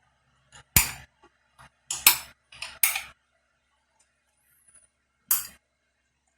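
Plastic decoy security camera being handled: a handful of sharp clicks and knocks in the first three seconds, then one more after a pause about five seconds in.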